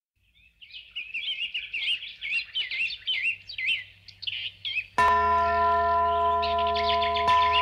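Birds chirping in quick repeated calls. About five seconds in, a bell tolls with a sudden loud strike and rings on, and it is struck again about two seconds later while the birds keep chirping.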